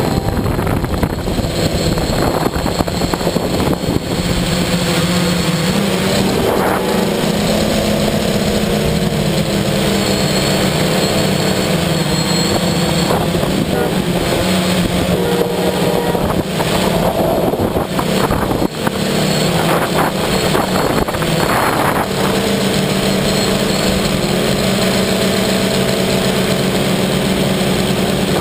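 Electric multirotor drone's motors and propellers running steadily, recorded from the camera mounted on it: a loud buzzing hum whose pitch shifts slightly several times as the throttle changes, over a rushing noise.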